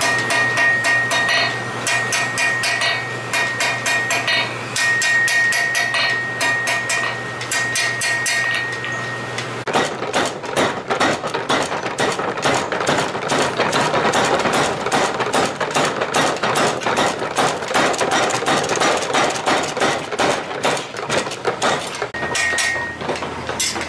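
Hand hammer blows on a red-hot katana blade ringing off a steel anvil, in quick runs of strikes. About ten seconds in, this gives way to a mechanical power hammer pounding the blade in fast, steady blows without the ring. Near the end the ringing anvil blows return.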